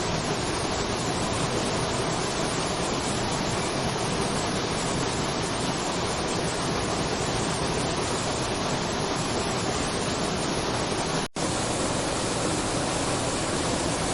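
Waterfall: a steady, even rush of falling water, with a split-second dropout about eleven seconds in.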